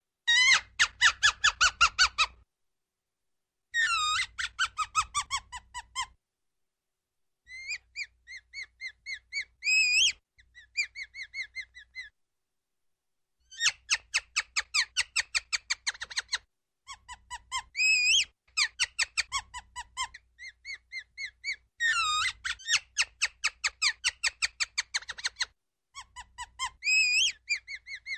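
Ground squirrel alarm calls: rapid trains of high-pitched chirps, about six a second, in bouts of two to three seconds with short silences between. Some chirps slide downward in pitch.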